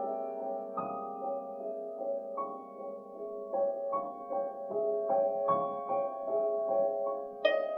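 Grand piano playing a slow, quiet classical passage of single struck notes that are left to ring. Near the end a hammered dulcimer comes in with bright, ringing struck notes.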